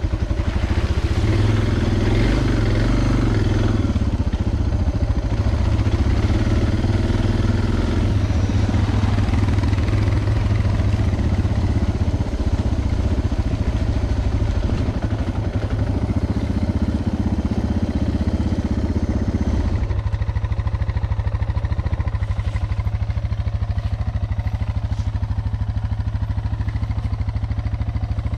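Suzuki DR650 dual-sport motorcycle's single-cylinder engine running on a trail ride. About twenty seconds in, the engine settles into a quieter, steadier run.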